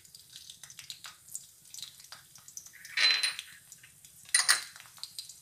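Chopped garlic and green chillies sizzling in hot oil in a kadhai, with scattered light crackles and pops. Two louder sharp bursts stand out, about three seconds and four and a half seconds in.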